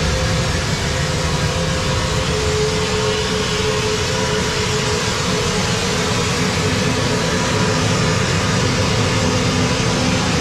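Wet-blasting (vapour-blasting) cabinet running, blasting a Rotax 122 engine case with a water slurry: a loud, steady hiss of air and water with a constant hum beneath it.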